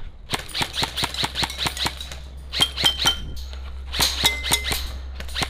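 Airsoft rifle firing rapid single shots, a sharp click each, several a second in short strings with a couple of brief pauses. Twice there is a short ringing ping.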